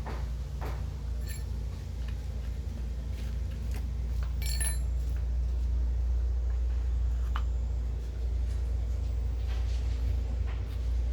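Metal tools and parts clinking and tapping, with one bright ringing clink about four and a half seconds in, over a steady low hum.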